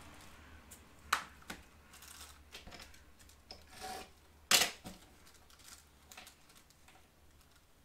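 Small parts and packaging of an engine gasket kit being handled and sorted by hand: rustling and light clicks, with a sharp click about four and a half seconds in and a smaller one about a second in.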